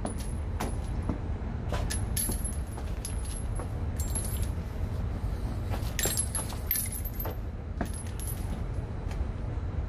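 Metal cartridges clicking and clinking as rounds are handled and pressed into a Pro Mag magazine: many short, irregular clicks with a bright metallic ring, over a steady low rumble.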